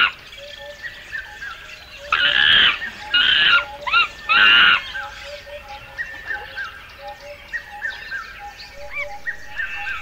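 Monkeys squealing: three loud, harsh screeching calls about two, three and four and a half seconds in. Small birds chirp in repeated short notes throughout.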